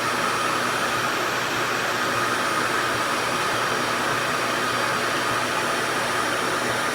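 RevAir reverse-air hair dryer running steadily, its suction airflow a constant rush with a faint high whine, while a section of hair is held in the wand.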